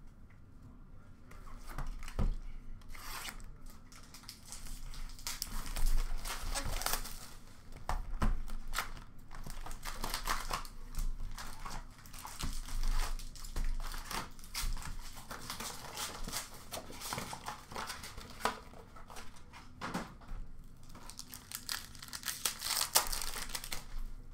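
Foil wrappers of Upper Deck hockey card packs being torn open and crumpled by hand, with cards sliding and shuffling. The crackling and tearing come in irregular spurts throughout.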